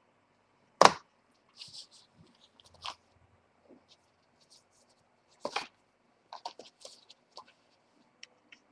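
Craft materials handled on a tabletop: two sharp knocks, one about a second in and the louder-looking pair about five and a half seconds in, amid short crinkling and rustling sounds and small ticks.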